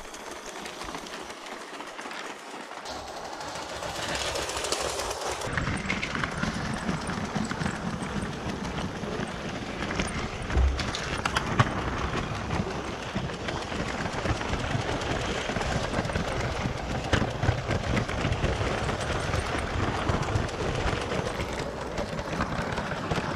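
Lego 12V toy trains running on plastic track with metal conductor rails: a continuous rattle of small wheels clicking over the track. It gets louder and fuller about five seconds in, once the sound is picked up on board a moving train, with an odd sharper knock along the way.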